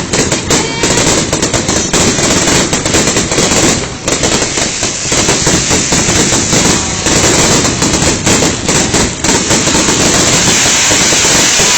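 Fireworks finale barrage: a loud, dense, near-continuous run of shell bursts and crackling, with brief lulls about four and seven seconds in.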